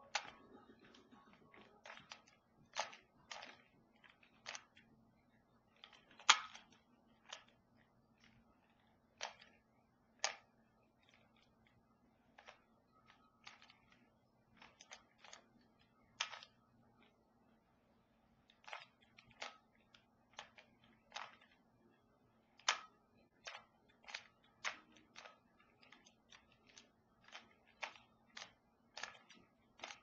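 Plastic Rubik's cube being turned by hand: irregular clicks and clacks as its layers are twisted, coming in small clusters with short pauses between, one or two much sharper snaps among them.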